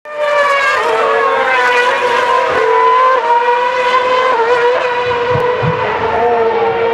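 2012 Formula One cars' V8 engines running at high revs on the circuit: a loud, steady, high-pitched engine note, with more than one engine heard at once and the pitch dipping slightly now and then.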